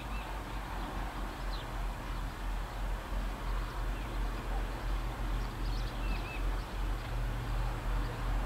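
Low, pulsing rumble of HŽ series 2062 (EMD G26C) diesel locomotives' Roots-blown two-stroke engines, growing slightly louder as they slowly shove a hopper wagon during shunting. Birds chirp faintly.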